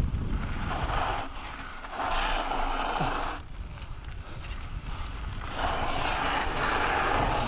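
Mountain bike rolling down a dirt trail: tyres crunching over loose, gritty ground in several stretches, over a steady wind rumble on the helmet camera's microphone.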